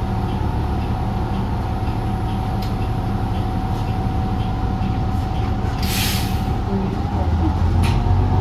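Inside a 2016 New Flyer XDE40 diesel-electric hybrid bus under way: a steady low rumble of the drivetrain with a steady whine over it. About six seconds in comes a short hiss of air, and the rumble grows a little louder near the end.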